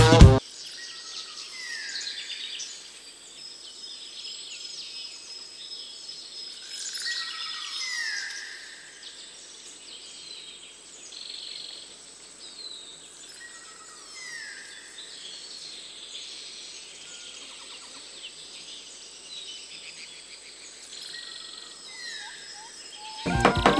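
Birds chirping and calling, with a group of falling calls coming back about every six seconds, over a steady high tone.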